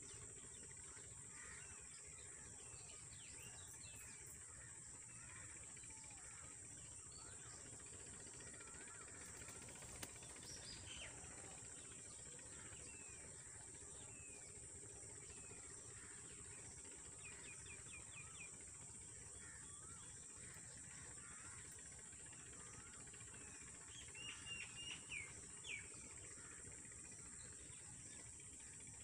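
Faint natural ambience: a steady high-pitched insect drone, with short runs of quick bird chirps a little after halfway and again near the end.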